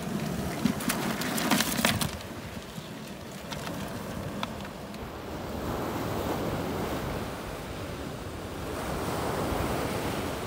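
Surf washing over a rocky shore, swelling and easing twice, with wind on the microphone. A short run of sharp clicks and rattles comes in the first two seconds.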